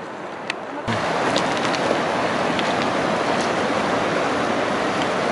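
A fast mountain river rushing in a steady, even wash. The sound changes suddenly about a second in, from a quieter outdoor noise to the louder rush of the water.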